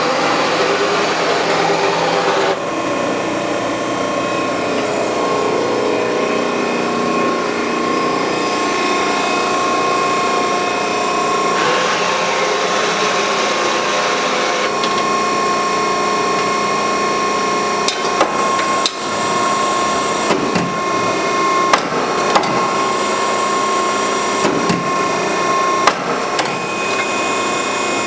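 Allsteel 20-4 hydraulic press brake running, its hydraulic power unit giving a steady hum with a constant whine. A rushing noise rises over it twice, at the start and again around the middle. Several sharp clicks and knocks come in the last third.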